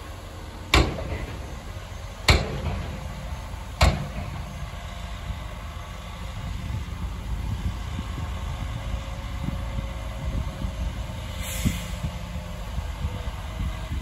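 Heavy diesel earthmoving machinery running with a steady low rumble. Three sharp bangs come about a second and a half apart early on, and there is a brief hiss late on.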